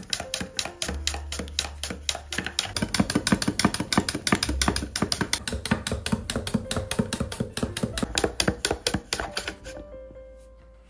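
A knife chopping on a cutting board in rapid, even strokes, about six a second, stopping shortly before the end; background music plays underneath.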